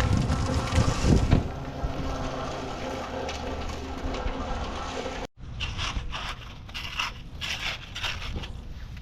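Crunching and scraping of soil or gravel over a steady machine hum, loudest in the first second and a half. An abrupt cut comes about five seconds in, followed by a run of short, sharp scraping strokes.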